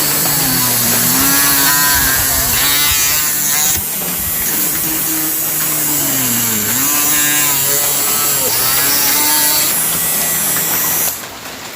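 Small electric mini drill motor running at speed with a steady high whir, then stopping abruptly near the end.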